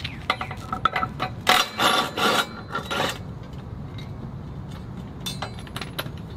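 Metal scraping and clinking from hand work on the blades under a mower deck, as blades and hardware are handled. A busy run of sharp scrapes and clanks fills the first three seconds, then only a few light ticks.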